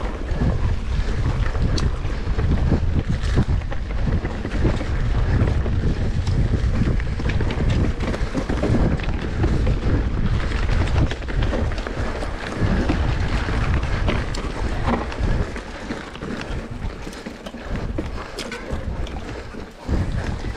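Wind buffeting the microphone: a heavy, gusty rumble that eases a little near the end.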